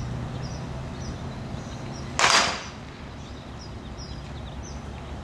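A pitched baseball popping into a catcher's mitt: one sharp pop about two seconds in, with a short echo after it.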